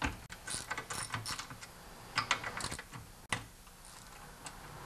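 Ratchet socket wrench clicking in short, irregular runs as it loosens the carburetor mounting bolt on a small lawnmower engine.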